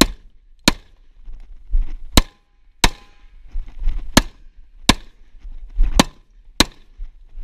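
Gunshots from a firearm fired in quick pairs: eight sharp shots, the two in each pair about 0.7 seconds apart, with a second or so between pairs.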